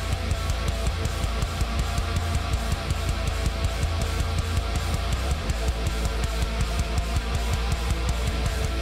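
Background music: a rock track with electric guitar, strumming and a drum kit keeping a steady beat.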